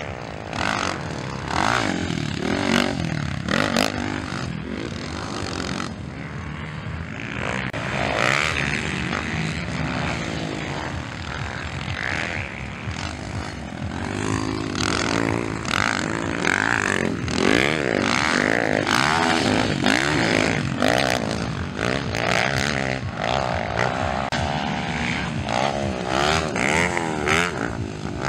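Several motocross bike engines revving on a dirt track, the pitch climbing and falling back again and again as the bikes accelerate and back off through the jumps and turns.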